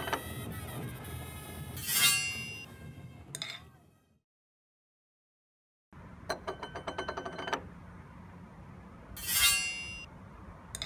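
Title theme music, with a swoosh about two seconds in, fading out to silence by about four seconds in. After about two seconds of silence the music starts again with quick repeated chime-like notes and another swoosh near the end.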